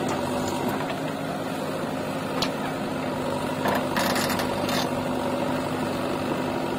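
Diesel engines of a JCB 3DX backhoe loader and an Eicher tractor running steadily, with a short burst of noise about four seconds in.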